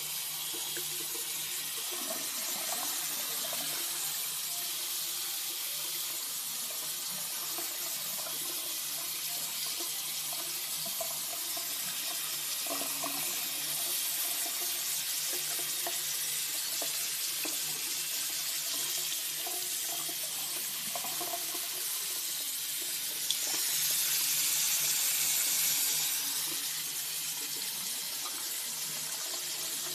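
Water running from a bathroom sink tap and splashing over a puppy held under the stream: a steady rush that grows louder for a few seconds late on.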